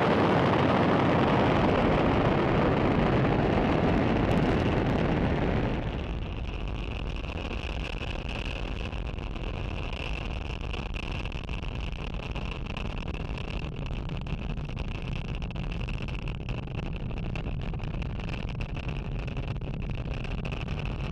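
Falcon 9 first-stage engines firing during ascent: a continuous loud rumble that drops in level about six seconds in and then goes on steadily with a thin high tone above it.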